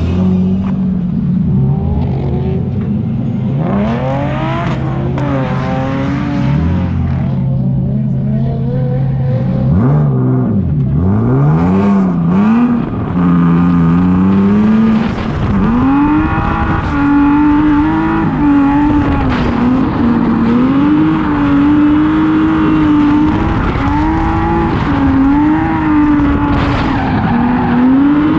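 Drift car engine revving hard, its pitch sweeping up and down in several big rev swings and then wavering up and down about once a second under throttle modulation, with tyres squealing as the car slides.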